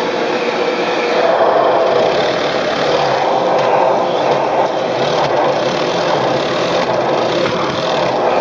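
Philips FC8578/69 Performer Active bagged cylinder vacuum cleaner running steadily with a whine, its floor nozzle sucking up debris from a hard floor. It gets a little louder about a second in.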